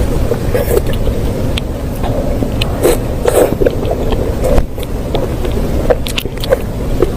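A person biting and chewing fatty pork close to the microphone: many short, irregular wet clicks over a steady low rumble.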